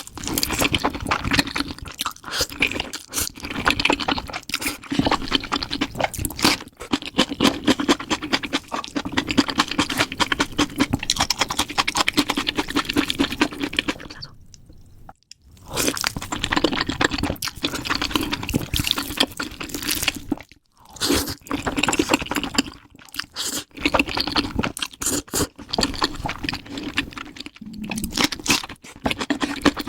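Close-miked eating sounds sped up to double speed: rapid, continuous crunching and chewing, broken by a short pause about halfway through.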